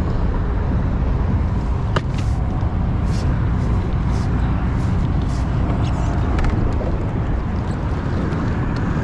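Steady wind buffeting the microphone, a loud low rumble, with a few faint high ticks scattered through it.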